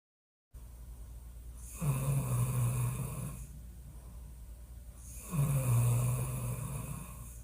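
A woman snoring loudly: two long snores about three and a half seconds apart, each with a low tone that dips slightly as it begins, with quieter breathing between them.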